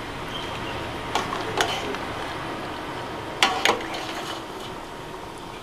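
Metal ladle stirring a thick coconut-milk vegetable curry in a stainless steel pot, clinking against the pot four times in two quick pairs.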